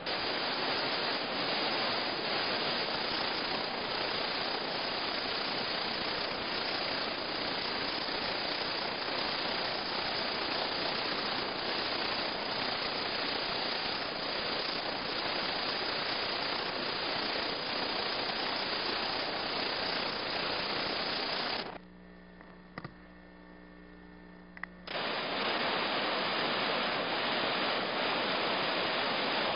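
Steady rush of river whitewater rapids, an even loud hiss. About 22 seconds in it cuts out to a faint steady hum for about three seconds, then the rush comes back.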